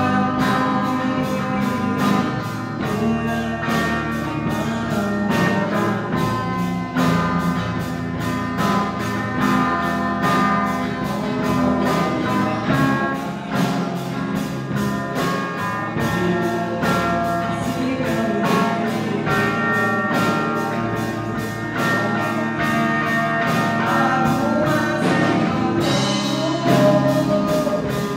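Live rock band playing a song: a boy sings into a microphone over electric and acoustic guitars, with a drum kit keeping a steady beat.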